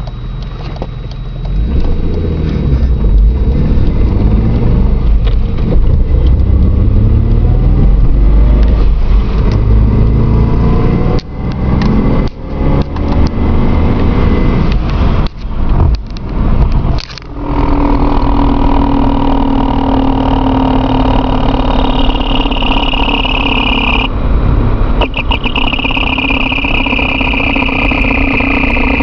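Vehicle running with a loud noise from the transmission area: a heavy low rumble that rises and falls in pitch, briefly cuts out several times around the middle, then settles into a steady multi-tone whine.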